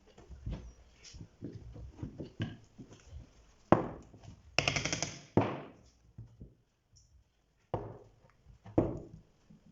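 Hand woodworking on a workbench: a string of light taps and knocks on wood, one harder knock a little past a third of the way in, and a few short scraping strokes.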